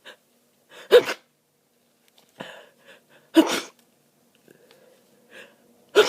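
A person with a stuffed-up head cold in a sneezing fit: three loud sneezes, about two and a half seconds apart, each preceded by a short in-breath.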